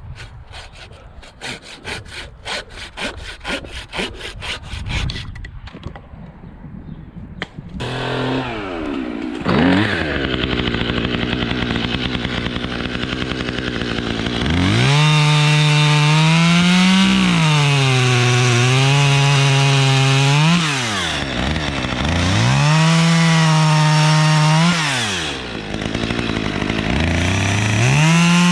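A hand saw rasps through wood in quick even strokes, about three or four a second, for the first five seconds. About eight seconds in a chainsaw starts up and runs, its pitch rising and then dropping again and again as it revs and bogs into the cut.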